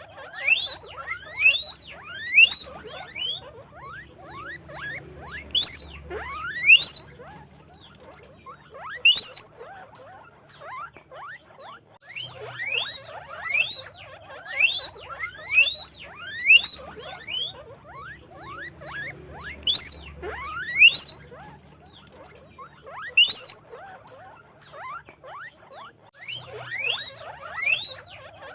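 Guinea pig wheeking: repeated high squeals that each rise sharply in pitch, coming in quick runs, with short lulls about ten seconds in and again near the end.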